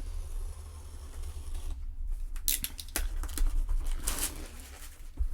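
A mailed package being opened by hand: scattered clicks and scrapes of cardboard and packaging, with two longer rustling or tearing swipes about two and a half and four seconds in, over a low steady hum.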